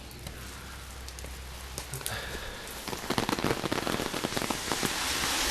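Rain pattering steadily, with a dense run of drop ticks from about halfway in and the patter growing louder toward the end.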